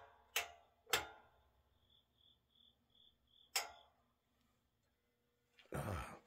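A few sharp clicks and knocks, with a faint high chirping pulsing about three times a second between them, then a burst of rustling noise near the end.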